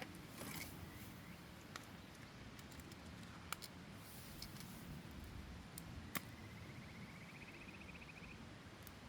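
Faint steady rush of a mountain stream with a few sharp, isolated crackles and pops, as from a campfire. About six seconds in, a faint warbling high trill rises for a couple of seconds.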